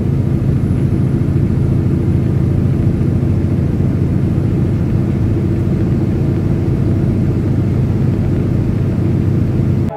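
Semi-truck diesel engine and tyres on the wet road, heard from inside the cab as a steady, unchanging drone while cruising at highway speed. It cuts off abruptly at the very end.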